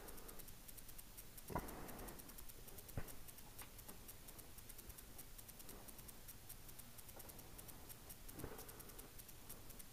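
A few light knocks and clicks, about one and a half, three and eight and a half seconds in, over a quiet background.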